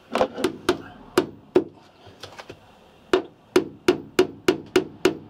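Hammer tapping a nail into pine tongue-and-groove cladding: a few blows, a short pause, then a steady run of about three blows a second.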